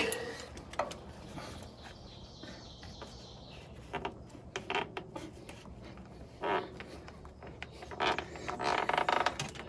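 Socket ratchet working a strap-type oil filter wrench: scattered single clicks, then a quick run of ratchet clicks near the end. The new oil filter on the generator engine is being snugged a little past hand-tight so that it won't leak.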